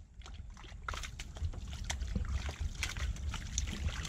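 Water sloshing and dripping while a fishing net is handled at the water's edge or from a small boat, with scattered small knocks and clicks throughout.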